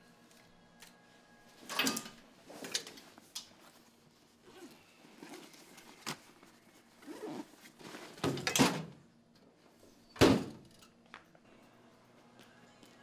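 Steel locker being handled: a series of clicks and knocks from the latch and door as a backpack is put in, then the door shut, the loudest knock, about ten seconds in.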